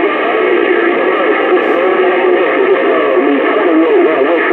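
Garbled voices coming over a radio, thin and cut off at the top and bottom like a two-way radio channel, with several pitch lines tangled together.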